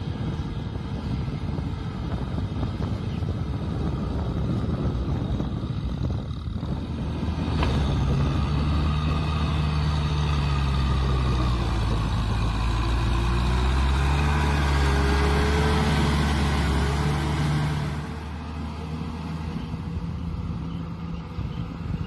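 Kubota M6040SU tractor's four-cylinder diesel engine running under load as it pulls a disc harrow through mud. The engine hum is rough at first, becomes loud and clear from about a third of the way in, then drops back near the end.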